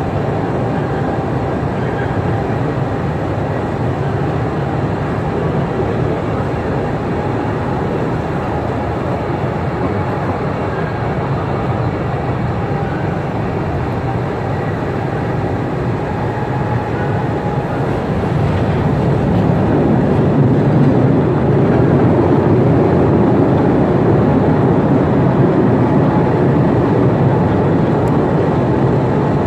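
Postojna Cave's electric tourist train running through the tunnels, heard from an open passenger car: a steady rumble and rattle of wheels on track that grows louder about two-thirds of the way in.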